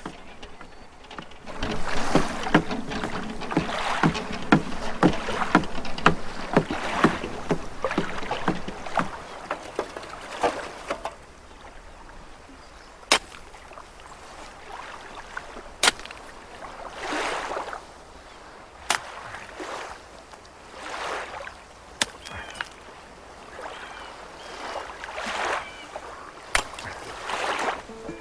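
Rapid crunching and scraping on loose stones for several seconds. Then quieter water lapping in soft swells, with a few single sharp knocks.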